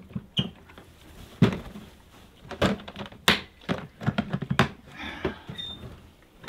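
Plastic pet carrier being latched shut: a series of sharp clicks and knocks as its side clips are snapped on and the plastic shell is pressed together.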